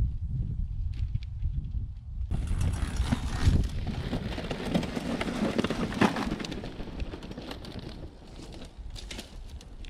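Wind rumbling on the microphone, then, about two seconds in, loaded touring bikes rolling past on a sandy dirt track, their tyres crunching over grit and leaves. The sound is loudest as the first bike passes close and fades as the riders move away.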